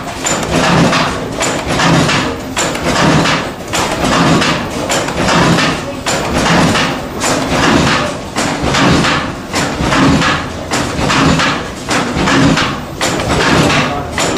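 A 20,175-cubic-inch single-cylinder stationary engine rated 125 HP at 160 RPM, running with a slow, heavy, even beat of about one and a half strokes a second.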